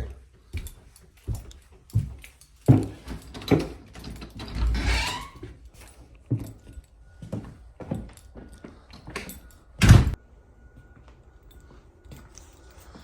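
Handling noises: jangling, with scattered knocks and clunks and one loud thump about ten seconds in. A faint steady high tone runs through the second half.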